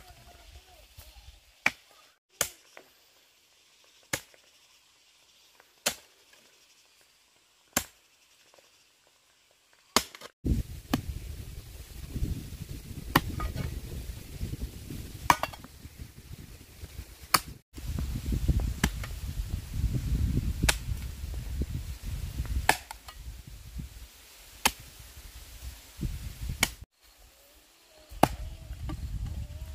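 Repeated sharp chopping strikes, about one every two seconds. From about a third of the way in, a low rumbling noise runs underneath.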